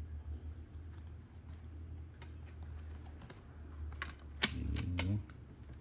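Light clicks and taps from a CD digipack being handled, with two sharper clicks near the end, over a low steady hum.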